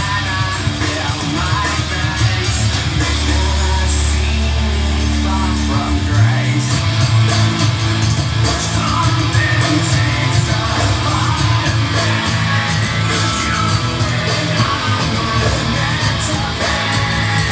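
Loud rock music with guitar and a singing voice, at a steady, dense level; the bass line changes about six seconds in.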